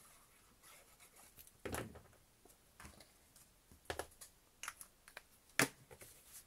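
Paper and cardstock being handled and pressed down on a craft mat: a few scattered taps and rustles.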